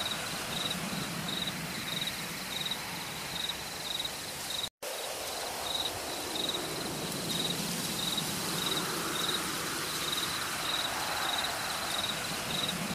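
Forest ambience: a steady hiss with a high chirp pulsing two or three times a second, under the low drone of a distant motorcycle that grows a little stronger in the second half. The sound cuts out for a split second about five seconds in.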